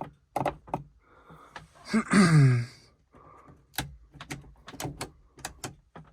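Sharp plastic clicks and knocks from car interior trim being handled and fitted. About two seconds in there is a louder, drawn-out sound that falls in pitch.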